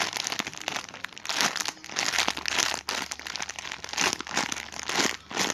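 Plastic wrapping crinkling and crackling in quick, irregular bursts as a squishy toy in its bag is handled.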